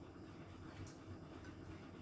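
Faint eating sounds: a few soft clicks and mouth noises over a low steady hum, with one sharper click a little under a second in.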